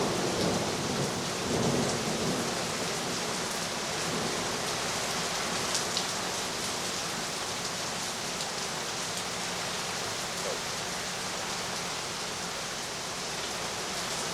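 Heavy rain falling steadily in a thunderstorm, with a low rumble of thunder fading out in the first two seconds.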